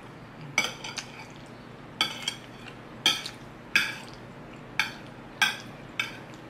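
Metal spoon scraping and clinking against a ceramic plate while scooping macaroni with meat sauce, about seven short strokes roughly a second apart.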